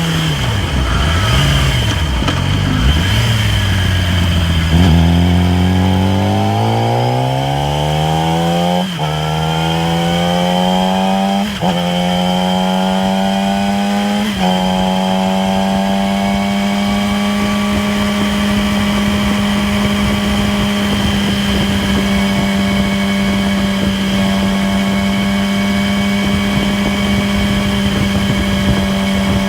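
2008 Yamaha R6's inline-four engine under riding: the revs fall at first, then climb through the gears with three upshifts, then hold a steady cruise. Over the engine note runs a steady high whirring whine, most audible at the 6-7k rpm cruise. Its cause is undiagnosed; the owner suspects the stator, cam chain tensioner or chain and sprockets.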